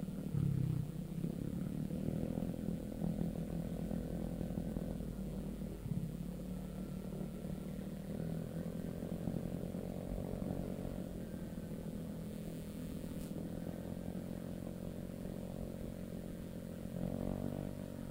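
Vespa automatic scooter's single-cylinder engine running steadily under way. The engine is freshly rebuilt to the "63" spec and still being run in. Its pitch rises briefly near the end as the throttle opens.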